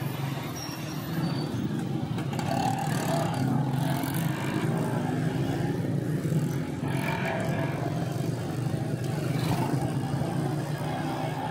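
Small motorcycle engine running steadily while riding, with the noise of busy street traffic around it.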